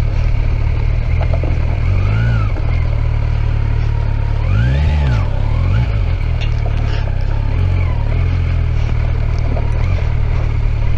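Kawasaki Versys 1000 SE's inline-four engine running steadily as the motorcycle is ridden at low speed, with the revs rising and falling briefly about two seconds in and again, more strongly, around five seconds in.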